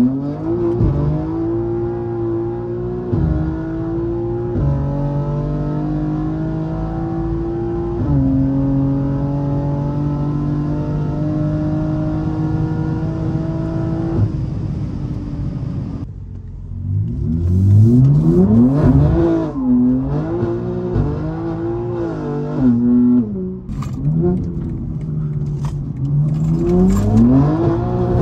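BMW M3 G80's twin-turbo straight-six heard from inside the cabin. It pulls hard through upshifts about 3, 5 and 8 seconds in, then runs steady at high speed. After a break about halfway through, it revs up and down sharply through quick shifts, with short sharp cracks among the revs.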